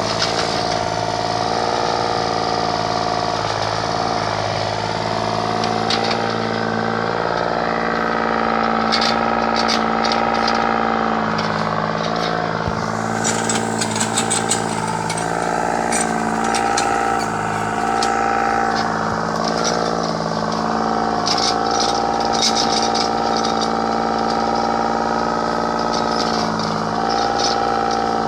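Excavator's diesel engine running steadily under a hydraulic whine that shifts slightly in pitch as the machine works, with spells of short high-pitched ticking now and then.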